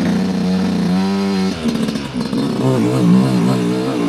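Dirt bike engine running under the rider, its note rising and falling with the throttle. It drops to a lower, rougher note about one and a half seconds in.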